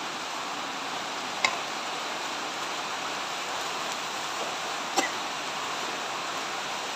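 Steady sizzling hiss of shredded cabbage and carrot stir-frying in a wok, with two sharp clinks of the metal spatula against the wok, about a second and a half in and again about five seconds in.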